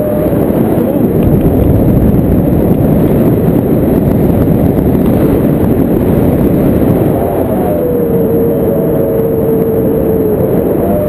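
Strong wind buffeting the microphone in paraglider flight, a loud steady rumble. From about seven and a half seconds in, a wavering tone rides over it.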